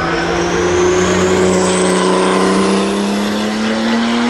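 Martini Racing Porsche 935 race car's turbocharged flat-six pulling under acceleration, its note climbing slowly and steadily through one long gear, with a thin high whine rising alongside it.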